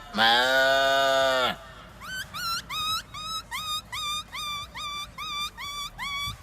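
A man doing animal impressions: a long, cow-like moo lasting about a second and a half, then a quick run of short rising whistled chirps, about three a second, like a bird calling.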